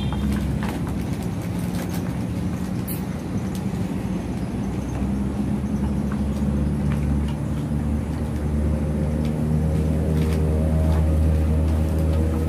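A motor vehicle engine running with a steady low hum, growing louder in the second half, with a few light clicks over it.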